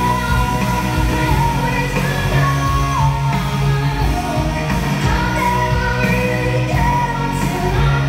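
Loud rock song with a sung lead vocal over a full band backing, played through a theatre's sound system.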